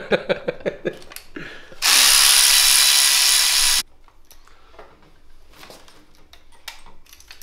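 A cordless electric ratchet whirs steadily for about two seconds and cuts off suddenly as it undoes a fastener on the front of a BMW boxer engine. A man's laughter comes just before it, and light clinks of tools and parts come after.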